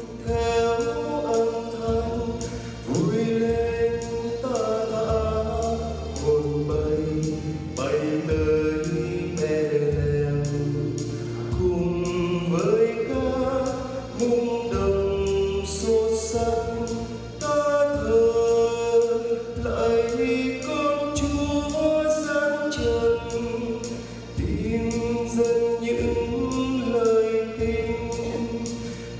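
Church choir singing a hymn in Vietnamese with many voices in harmony, over instrumental accompaniment with a bass line and a steady beat.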